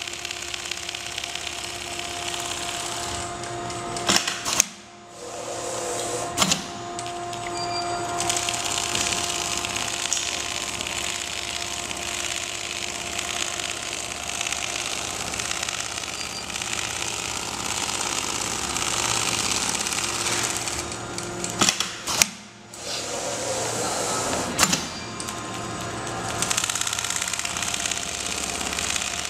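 CNC template sewing machine running steadily, stitching quilting lines through a down-jacket sleeve panel. The stitching stops briefly twice, about five seconds in and again about twenty-two seconds in, with a few sharp clicks around each stop before it carries on.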